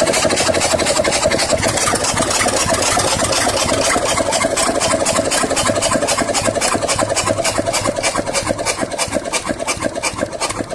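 Lister JP3 three-cylinder diesel engine running steadily, with an even, rapid beat of firing knocks.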